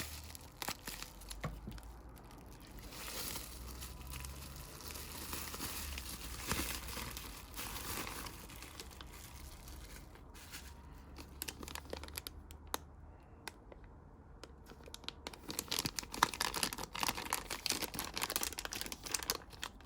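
Plastic wrapping being handled and pulled off, crinkling and tearing in irregular bursts with many small crackles. It goes quieter for a few seconds in the middle, then the crinkling picks up again and gets denser near the end.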